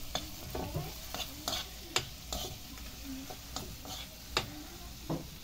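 A plastic spoon stirring grubs frying in oil in a black wok, scraping and knocking against the pan a dozen or so times over a steady sizzle.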